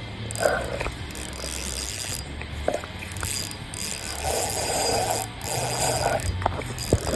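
Fishing reel ratcheting in repeated short bursts, its gears and drag clicking, while a big hooked bass is being played and reeled in.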